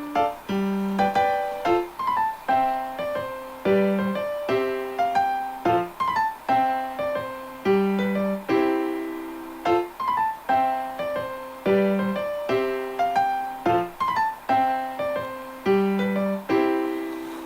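Background piano music: a gentle melody of struck notes, each ringing out and fading, in a steady repeating pattern.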